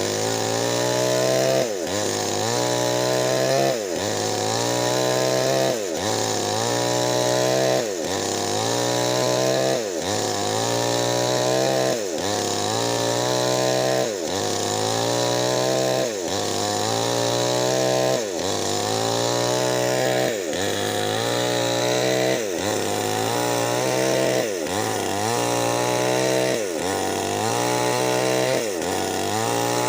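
Nixon chainsaw with a 25-inch bar running under load while ripping a Medang log lengthwise. The engine note sags and recovers about every two seconds as the chain bites into the wood.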